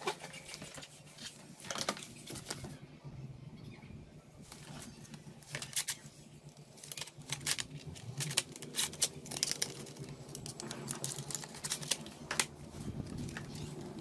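Irregular light clicks and taps from handling a laptop and its parts, over a steady low hum.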